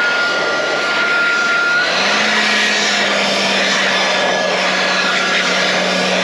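Air blowing hard through a furnace cabinet to clear dust off the controls: a loud, steady rush with a thin high whine, joined about two seconds in by a low steady hum.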